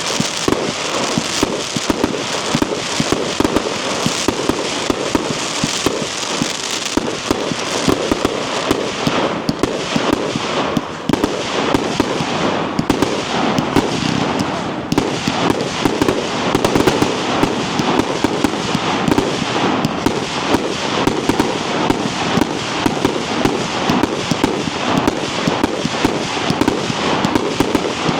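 Night Owl Grave Digger, a four-cake compound firework cake, firing continuously: a dense, rapid stream of tube launches and aerial breaks, many shots a second.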